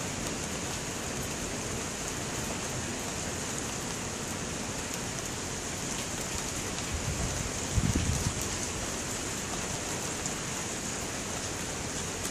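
Steady hiss of a night thunderstorm, with one brief low rumble about eight seconds in.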